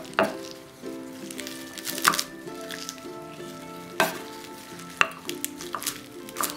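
Chef's knife chopping a bundle of fresh herbs and green onion on a wooden cutting board: about eight sharp cuts at uneven intervals. Light background music plays underneath.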